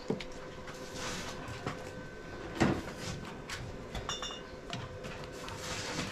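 Scattered light knocks and clatter of vegetables and kitchenware being handled, with a sharper knock about two and a half seconds in and a brief high clink around four seconds in.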